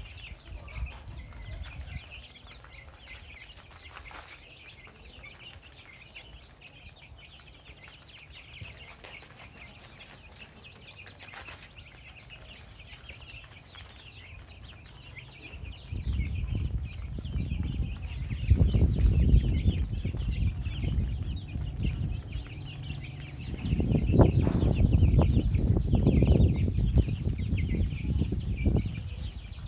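A flock of baby chicks peeping steadily while they peck at feed. About halfway through a loud low rumble comes in and swells twice, louder than the peeping.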